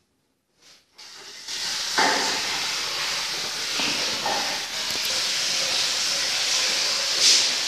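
A steady, high hiss that sets in about a second in and holds without a break.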